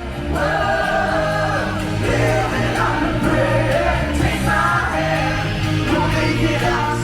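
Background music: a song with sung vocals, possibly choir-like, over a steady bass line, starting right at the beginning after a brief drop-out.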